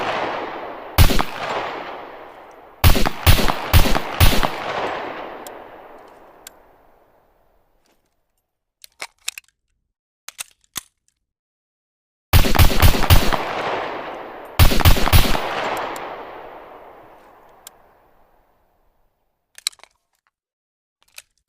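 M1911 .45 ACP pistol firing: a single shot, then strings of rapid shots, each shot followed by a long echoing tail. A few faint light clicks fall in the gaps between strings.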